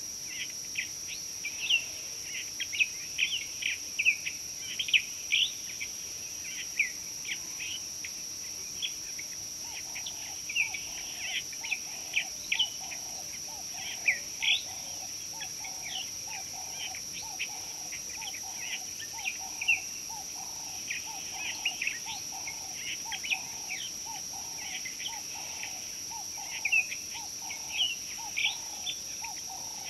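Wild birds chirping and calling, many quick high notes throughout, over a steady high-pitched whine. From about ten seconds in, a lower call repeats steadily, roughly once or twice a second.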